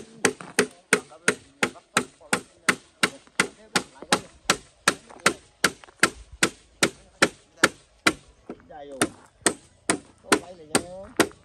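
Steady, fast chopping: sharp blade strokes into bamboo poles, about three a second, evenly spaced.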